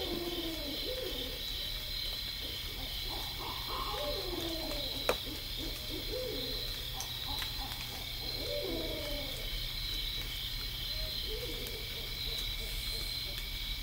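Owls calling in several bouts of hooting calls that slide in pitch, some overlapping one another. Beneath them runs a steady, high insect chorus, and there is one sharp click about five seconds in.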